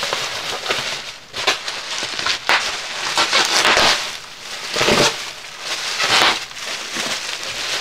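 Plastic bubble wrap rustling and crinkling as it is pulled open by hand. The crinkling comes in irregular surges, loudest from about three to four seconds in and again around five and six seconds.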